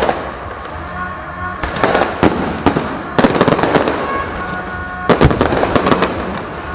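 Aerial fireworks bursting overhead: a run of separate sharp bangs, then stretches of dense crackling about three and five seconds in.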